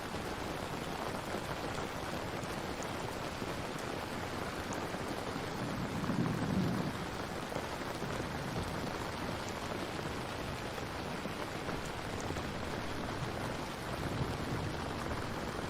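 Steady, even rain, with a low rumble swelling briefly about six seconds in.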